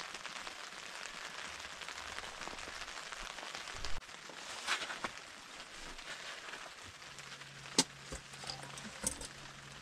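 Steady rain falling on a tarp overhead, with a few sharp knocks and clicks of gear being handled. A low steady hum starts about seven seconds in.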